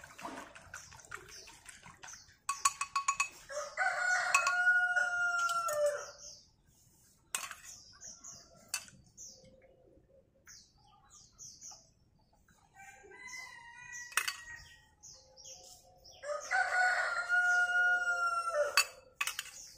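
A rooster crows twice, each crow a long call of about two and a half seconds, the first a few seconds in and the second near the end. Between the crows small birds chirp, and a metal ladle clinks against the bowls a few times.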